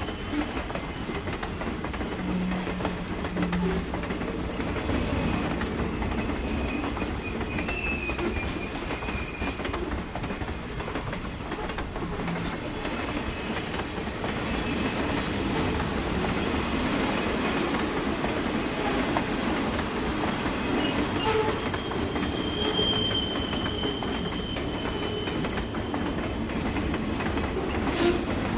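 Train passing close by: a steady rumble and clatter of railcar wheels on the track, with a thin high wheel squeal now and then.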